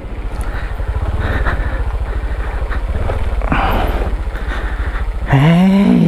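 Honda CT125's single-cylinder engine running at low revs as the motorcycle rolls slowly down a rutted dirt trail. Near the end the rider lets out a loud drawn-out exclamation.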